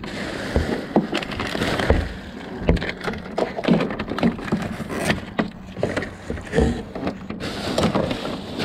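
Hands rummaging through plastic trash bags and discarded packaged food in a dumpster: rustling plastic and crinkling wrappers, with irregular clicks and knocks of boxes and packages shifting against each other.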